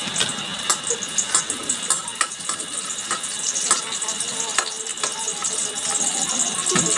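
Garlic and onion sautéing in hot oil in a pan: a steady sizzle with irregular crackles and pops.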